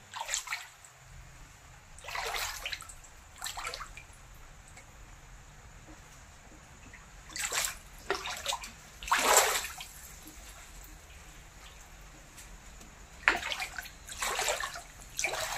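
Floodwater standing in a house, sloshing and splashing in short bursts about eight times, over a faint low hum.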